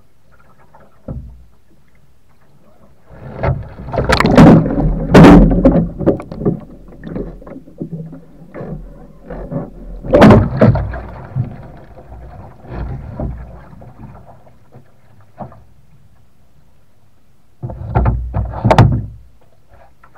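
Water splashing and churning as a sea kayak capsizes and is rolled back upright, heard from a deck-mounted microphone that goes under water; heavy splashing about three to six seconds in, a loud surge near the middle, and another burst of splashing shortly before the end as the boat comes up.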